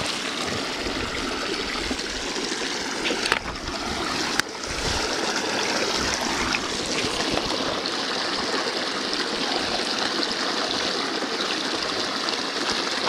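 Small mountain creek running steadily, water spilling over a little drop into a pool. Two brief knocks, about three and a half and four and a half seconds in.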